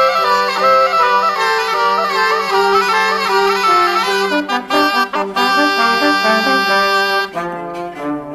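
Renaissance wind ensemble playing an instrumental passage: several busy melodic lines over a held low note. Shortly before the end the higher winds drop out and the music turns quieter.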